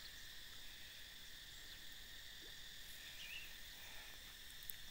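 Faint, steady high-pitched drone of insects: an outdoor chorus of crickets or cicadas.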